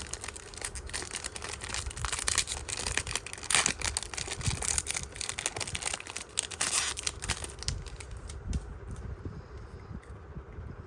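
Foil wrapper of a Japanese Pokémon card booster pack being torn open and crinkled, a dense crackling rustle that thins out after about eight seconds.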